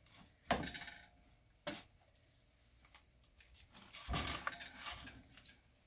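A sharp knock about half a second in, a lighter click a second later, then a stretch of clatter and scraping near four seconds: hard objects being handled on a work surface during soap cutting.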